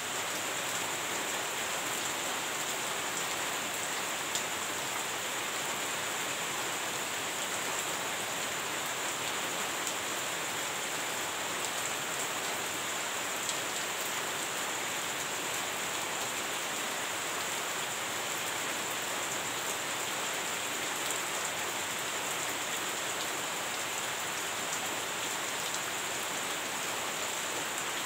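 Heavy rain falling steadily, an even hiss with scattered ticks of drops landing.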